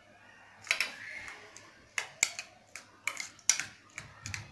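Metal spoon stirring a wet mix of chopped vegetables and mayonnaise in a small steel bowl, with irregular clinks and short scrapes of the spoon against the bowl.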